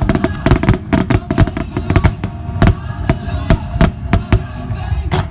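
Rapid volley of aerial firework bursts: many sharp bangs in quick succession, several a second, at a fireworks display's opening.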